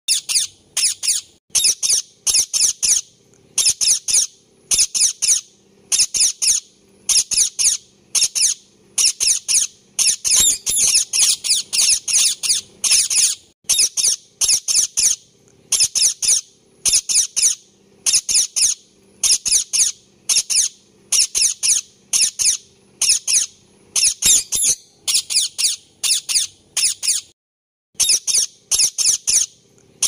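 Indian ringneck parakeet giving high-pitched squawking calls in quick runs of a few notes each, over and over, with a brief pause near the end.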